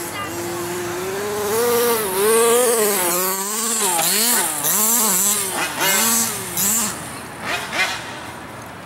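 Two-stroke gasoline engine of a 1/5-scale HPI Baja RC truck revving. Its pitch climbs over the first couple of seconds, then goes rapidly up and down with the throttle, before the engine fades near the end.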